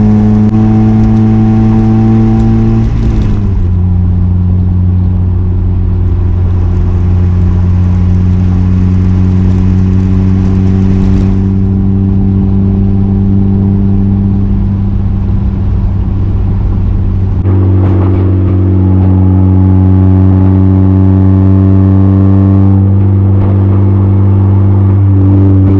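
1992 Mazda Miata's 1.6-litre four-cylinder engine running through an ISR Performance Circuit Spec exhaust and test pipe, holding a steady drone at a near-constant engine speed. Its pitch drops slightly about three seconds in, climbs again past the middle, and shifts once more near the end.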